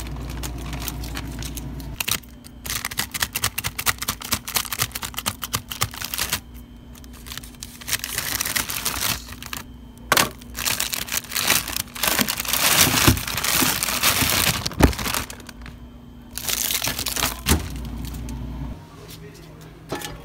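Plastic and foil food packaging crinkling and rustling as it is handled, in irregular bursts that are loudest in the middle, over a steady low hum that stops near the end.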